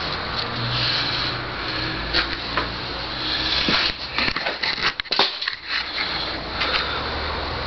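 A homemade power hammer running: a steady motor hum with a dense clatter of blows. About four seconds in, the hum drops away for a second or so while a few separate sharp knocks sound, then it picks up again.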